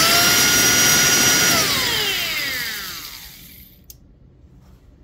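Rockwell Model 60 jigsaw's electric motor running flat out with its gear housing open, a loud steady whine. It is switched off about one and a half seconds in and winds down over about two seconds, the whine falling in pitch as it slows, followed by a light click.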